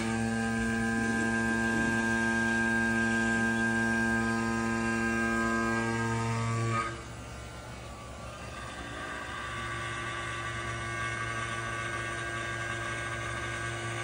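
Electric vacuum pump switching on and running with a steady hum, pulling a vacuum on a jar. About seven seconds in its pitch sags slightly and it turns quieter, then runs on steadily.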